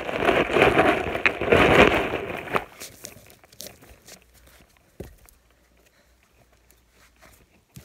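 Loose hay rustling and crunching as someone shifts about among hay bales, loud for the first two and a half seconds, then dying away, with a single knock about five seconds in.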